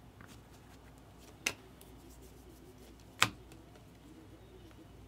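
A stack of baseball trading cards being flipped through by hand, one card at a time. Two sharp snaps as cards are flicked off the stack, almost two seconds apart, the second louder, with faint light ticks between.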